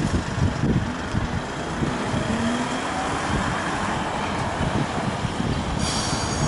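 Hankai Tramway Mo161, a 1928-built tram, pulling away: a low rumble with a rising whine, then the wheels start squealing near the end.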